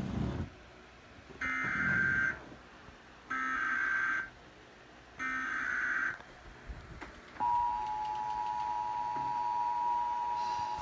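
Emergency Alert System header: three short bursts of buzzing digital data tones about a second apart. About seven and a half seconds in, the steady two-tone EAS attention signal begins, heralding a flash flood warning.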